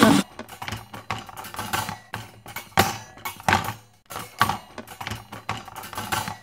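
A run of irregular, sharp clicks and light knocks, with a few louder knocks near the middle.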